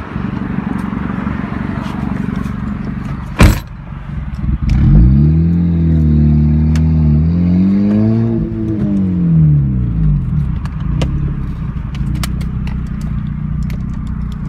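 Honda Civic four-cylinder engine running through an exhaust fitted with an electric cutout valve. A sharp knock comes about three and a half seconds in. From about five seconds in the engine is revved once: the pitch rises, holds for a few seconds, then falls back to idle by about ten seconds.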